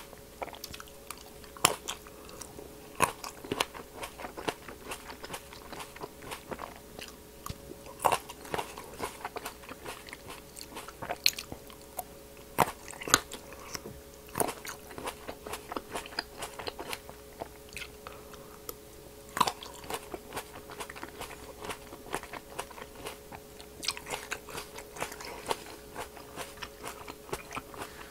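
Close-miked biting and chewing of green seedless grapes bitten straight off the bunch: many sharp, irregular crunches with wet chewing between. A faint steady hum runs underneath.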